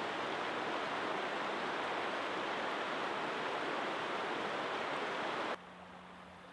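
Steady rushing water noise that cuts off abruptly about five and a half seconds in, leaving a faint steady low hum.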